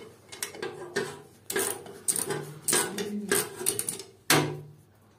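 Small hand ratchet clicking in short, irregular runs as it works loose a screw on an electric water heater's thermostat.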